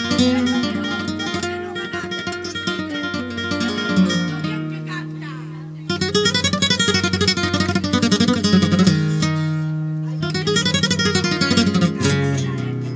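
Solo flamenco guitar playing the opening of a fandango, before the singing comes in. A chord rings and fades from about four seconds in, then fast runs of plucked notes rise and fall from about six seconds on.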